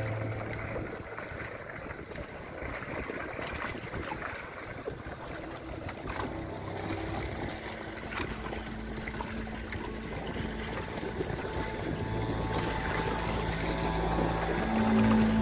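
Choppy sea water lapping and splashing in a strong wind, with wind noise on the microphone. Faint background music with steady low notes grows back in over the second half.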